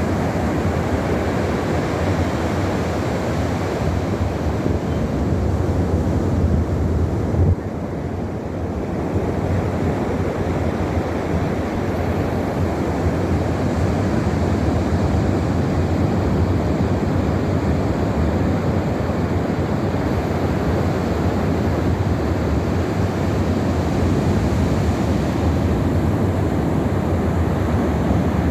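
Sea surf breaking and washing up a sandy beach, a steady rushing with wind rumbling on the microphone.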